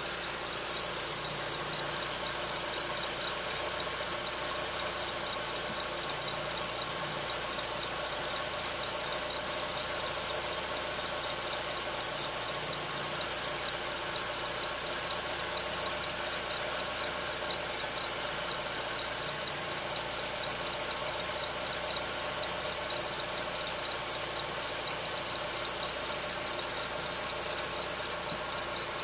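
Skoda Octavia's 1.8 T AGU turbocharged four-cylinder engine idling steadily, with a squeak coming from around the alternator belt.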